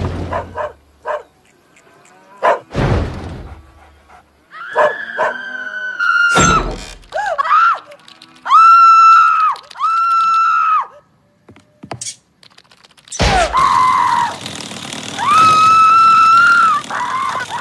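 Cartoon sound effects: several heavy thuds, the first right at the start as a ball-shaped cow hits a barn wall, and a woman's high-pitched screams, each held about a second: two in a row around the middle and another near the end.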